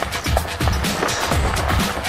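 Background music with a steady bass-drum beat, about three beats a second.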